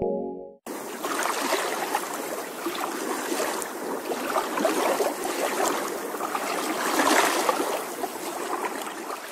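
Sea water splashing and bubbling close to the microphone, a continuous fizzy wash of small splashes that starts abruptly about half a second in.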